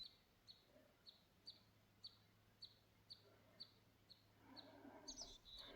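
Faint bird call: a short, high note repeated about twice a second, with a brief higher chirp near the end.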